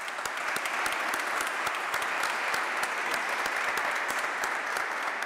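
A church congregation applauding: many people clapping their hands together, a steady, dense patter of claps.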